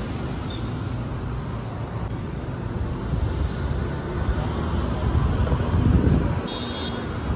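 Street traffic rumble mixed with wind buffeting the microphone. It grows louder about four to six seconds in, then drops back.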